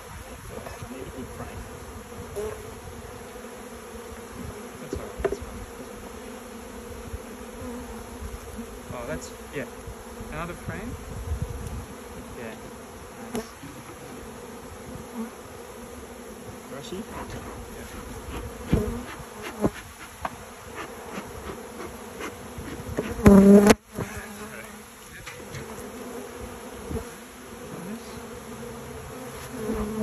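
Honeybees buzzing in a steady hum around an opened hive, with hundreds of them in the air. Occasional light knocks sound through it. Near the end a much louder, close buzz cuts off suddenly.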